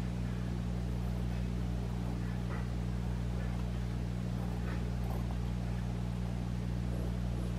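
A steady low hum, with a few faint scratches as the beveled end of a Royal & Langnickel Zen brush handle is pressed along watercolour paper to score lines into it.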